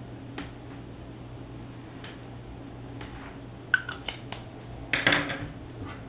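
Small handling sounds: a few light clicks and taps, a quick cluster of them about four seconds in, then a short scrape about five seconds in, as a felt-tip marker is handled over the paper and moved away.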